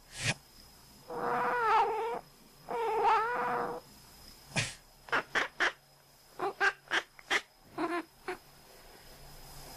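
A domestic cat gives two drawn-out, squeaky, wavering cries about a second long each, one right after the other. These are followed by bunches of short, clipped sounds.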